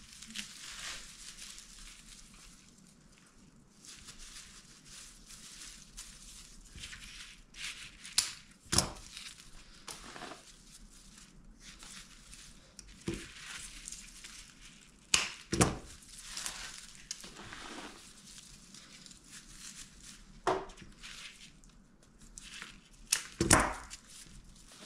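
Rustling and crinkling handling noise from craft materials being worked by hand, broken by a few sharp clicks or snaps.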